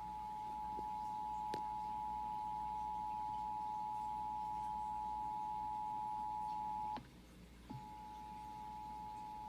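Emergency Alert System attention signal: two steady tones of about 853 and 960 Hz sounding together, marking the start of an EAS alert, here the Required Monthly Test. The tone cuts off about seven seconds in and resumes after a gap of under a second.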